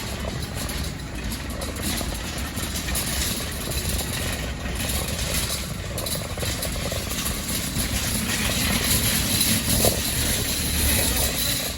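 Steady running noise of a car on the move: engine and road rumble throughout, with no sharp events.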